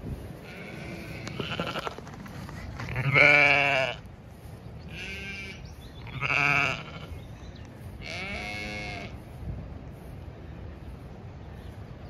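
Zwartbles sheep bleating about five times, the loudest calls about three and six and a half seconds in, over steady wind noise.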